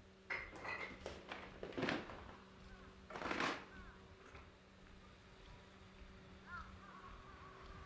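A bird calling: three short, loud calls in the first four seconds, then faint chirps near the end, over a low steady hum.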